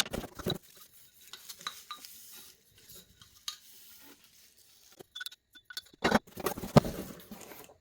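Hard objects being handled: scattered light clicks and knocks, with a denser run of knocks and rustling from about six seconds in.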